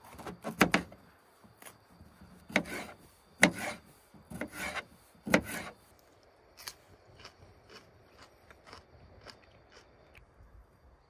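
Kitchen knife slicing a red bell pepper on a wooden cutting board: a series of sharp knocks of the blade meeting the board over the first half, then only faint clicks.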